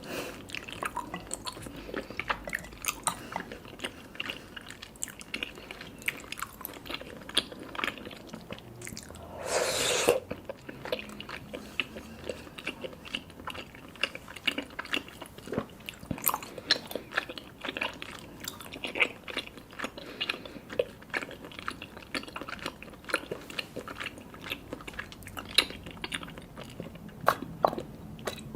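Close-miked chewing of sticky, chewy black tapioca pearls, with many wet mouth clicks throughout. About nine seconds in comes one slurp of about a second, boba sucked up through a straw.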